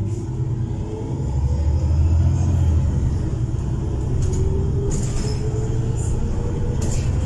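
Heuliez GX337 natural-gas city bus heard from inside the passenger cabin, its drivetrain rumbling under acceleration, loudest a second or so in, with a whine rising in pitch over the last few seconds. A few light rattles are heard from the interior.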